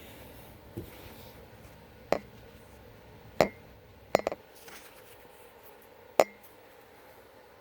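Sharp metallic clacks from handling an older Notifier fire alarm pull station while working it open: four knocks a second or two apart, the third a quick double.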